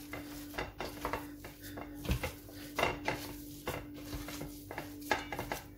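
Hand mixing a ground beef and chana dal kebab mixture in a stainless steel bowl: irregular soft knocks and scrapes of fingers and mixture against the metal bowl, over a steady low hum.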